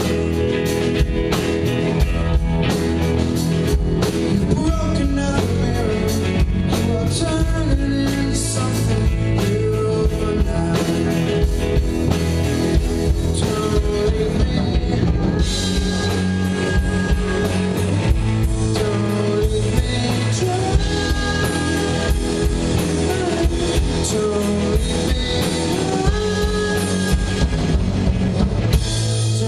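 Live rock band playing a song: electric guitars and a drum kit keep a steady beat while a lead vocalist sings held lines over them.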